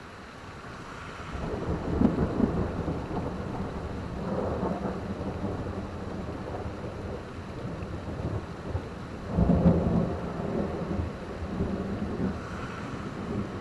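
Thunder rolling over steady rain. The rumble swells about a second and a half in, rises again around four and a half seconds, and peaks loudest about nine and a half seconds in before trailing off.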